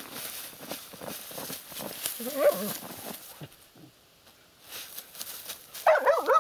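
Laika hunting dogs rustling and digging in a heap of dry, snowy reeds, with a short whine about two seconds in and a louder run of excited yelping whines near the end.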